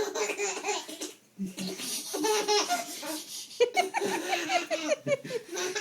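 A baby laughing in three high-pitched bouts, giggling as a cat licks its toes.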